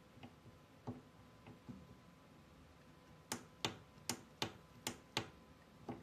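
Clicks from an analog thumb joystick module being worked by hand. A few faint clicks come first, then a run of six sharp clicks in under two seconds, one more just before the end.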